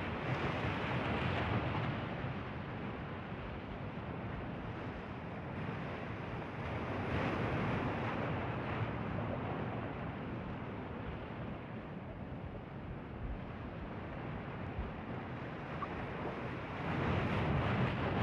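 Ocean surf and wind on the microphone: a steady rush of noise that swells three times, near the start, in the middle and near the end.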